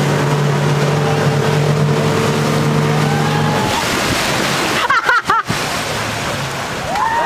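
Motorboat engine running steadily under rushing wind and spray, its note dropping away a little past halfway. A few short shouts follow about five seconds in, and more calls come near the end.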